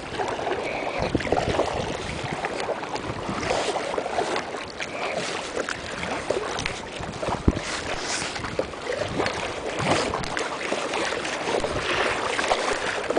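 Wind buffeting the microphone and water slapping against a small boat at sea, with scattered knocks and clatter from the boat and fishing gear; one sharp knock about halfway through.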